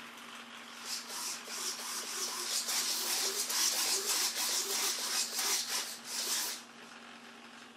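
Flap drive mechanism of a Windrider Boeing 737 RC model running as the wing flaps extend: a rough, whirring mechanical rasp that starts about a second in and stops after about five and a half seconds. A faint steady hum runs underneath.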